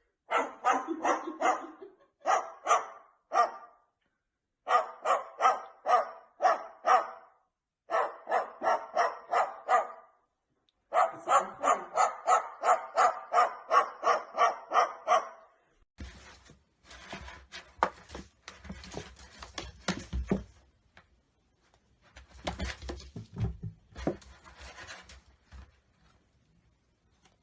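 A small dog barking in fast runs of high yaps, about three or four a second, with short pauses between runs. About sixteen seconds in, the barking gives way to irregular knocks, thumps and scuffling.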